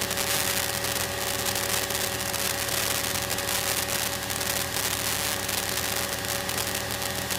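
Steady cabin drone of a light single-engine piston airplane in cruise, the engine and propeller giving an even hum with several constant tones under a rushing noise.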